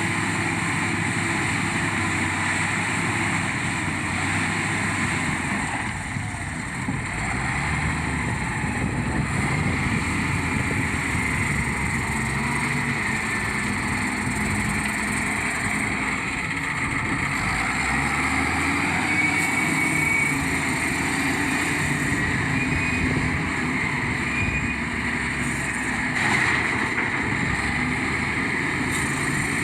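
Heavy earthmoving machine's engine running under working load, its pitch rising and falling as the machine works.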